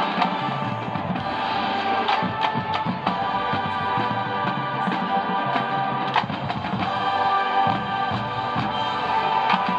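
College marching band playing live: held wind chords over drum hits.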